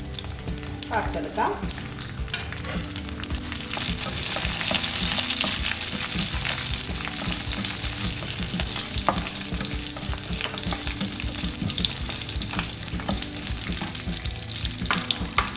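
Oil sizzling in a pan as dried red chillies, green chillies and curry leaves fry with mustard seeds, stirred with a spatula that clicks now and then against the pan. The sizzle grows louder a few seconds in, then holds steady.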